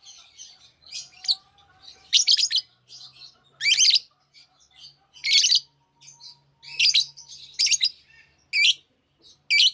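Lovebirds chirping: loud, sharp, high-pitched chirps roughly once a second, with softer twittering in between.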